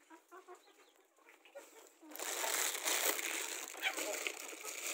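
A rustling, crinkling noise that starts suddenly about two seconds in and carries on loudly, after a quieter stretch of faint scattered sounds.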